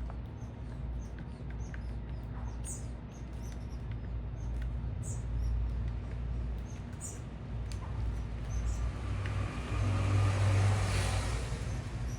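Steady low city traffic rumble with small birds chirping in short high notes during the first half. Near the end a vehicle passes close by, swelling to the loudest point and then fading.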